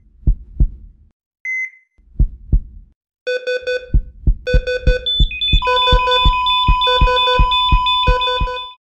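Heartbeat sound effect: paired low thumps with a short heart-monitor beep, then from about three seconds in a faster heartbeat under a pulsing synthesizer rhythm. A steady high monitor tone like a flatline joins about halfway through, and everything cuts off abruptly near the end.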